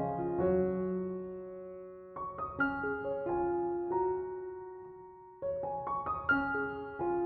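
Soft background piano music: short phrases of a few notes, each group struck together and left to ring and fade.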